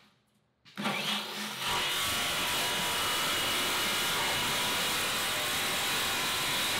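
Corded jigsaw starting up about a second in and then cutting steadily into the rusty steel drum of an old cement mixer, a constant saw noise with a steady high whine.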